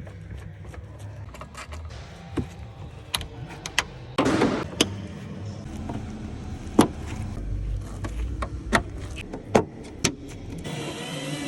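Installation work inside a car: scattered sharp clicks and knocks, a short rustling burst about four seconds in, over a low steady hum.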